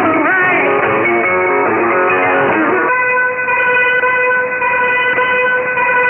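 Guitar music from a shortwave pirate broadcast received in AM, thin and without treble. About three seconds in it stops and a steady held tone with several overtones takes over.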